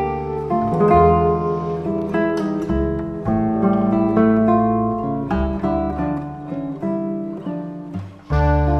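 Classical guitar playing a milonga passage: a plucked melody over low bass notes. The playing thins out briefly near the end, then the music comes back in louder.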